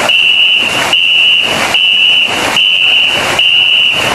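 Dozens of wooden paddles striking the water together, about one stroke every 0.8 seconds. A shrill, steady whistle keeps the beat, held between strokes and broken at each one, to keep the long-boat crew in time.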